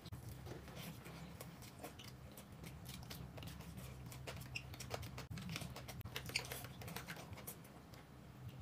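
Quiet eating at a table: chewing food, with scattered light clicks of chopsticks against plates.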